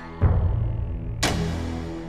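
Slow instrumental meditation music: a sustained drone with a deep drum hit about a quarter second in, then a second, brighter hit about a second later, both dying away.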